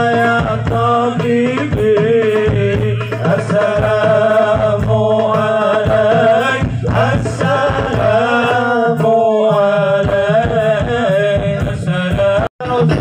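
Sholawat, Islamic devotional songs in praise of the Prophet, sung through a PA system over a steady hand-drum beat. The sound drops out for a moment near the end.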